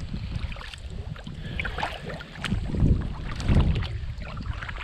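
Kayak paddling on a river: the paddle dipping and splashing, with drips, over wind rumbling on the microphone. Two louder swells come about three and three and a half seconds in.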